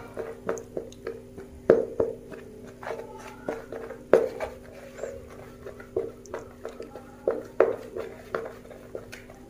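Hands tossing and pressing pieces of catfish in dry flour in a plastic basket, coating them for frying: irregular soft thumps and rustles. A steady low hum runs underneath.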